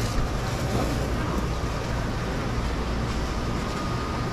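Busy street-market ambience: a steady low machine hum under an even haze of background noise, with no clear single event.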